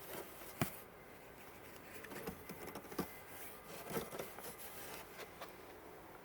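Faint rustling with a few light clicks and taps as dresses are handled.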